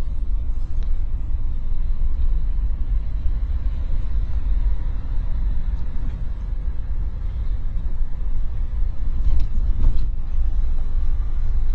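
Cabin noise inside a moving van: a steady low rumble of engine and road.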